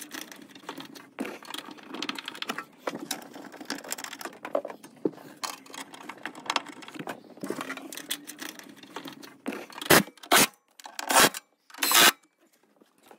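Small metal clicks and rattles of bolts being handled and started by hand, then four short, loud bursts from a cordless power tool driving the battery pack's mounting bolts down, about ten seconds in.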